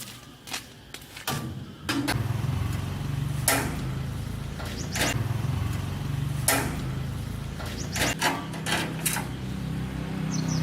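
A machine's motor starts up about a second in and runs steadily, with a series of sharp knocks over it.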